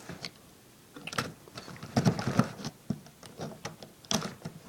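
Cardboard box and packaging being handled and pried at one-handed: irregular clicks, taps and short scraping rustles.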